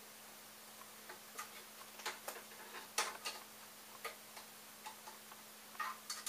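Irregular light clicks and taps of plastic and metal parts being handled while a 3D printer frame is assembled by hand, the sharpest about halfway through and a small cluster near the end, over a faint steady hum.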